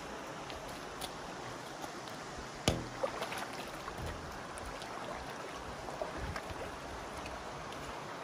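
Steady rush of shallow river water, with scattered knocks and splashes as a large flexible pump hose is handled in the water; the loudest is a single thump about two and a half seconds in.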